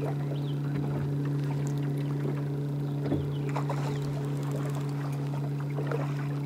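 A steady low hum from a small motor on the boat, one unchanging pitch with an overtone, with scattered light clicks as a blue catfish is fought and reeled in on a heavy rod.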